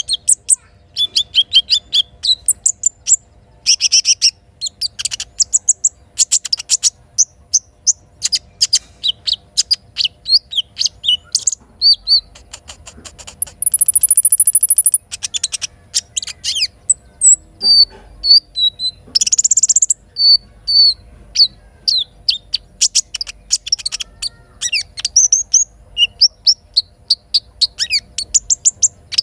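Little spiderhunter (sogok ontong) calling: streams of rapid, sharp, high chirps, with a loud steady high trill about halfway through.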